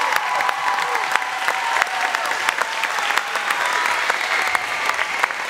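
Audience applauding, dense clapping throughout, with a few voices cheering over it.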